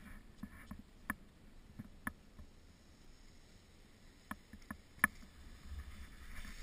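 Faint quiet broken by about five short, sharp clicks, the loudest about five seconds in, with a low rumble of wind on the microphone near the end.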